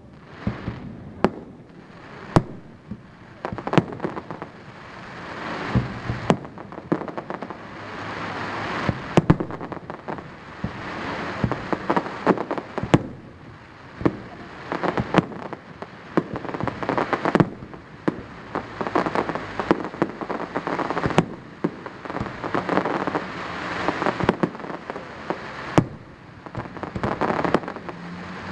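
Aerial fireworks shells going off one after another: sharp bangs at irregular intervals over a dense crackle that swells and fades between them.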